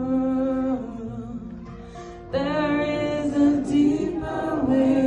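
A woman singing live in a folk style, with no clear words. A held note dies away about a second in, and the singing starts again about two and a half seconds in.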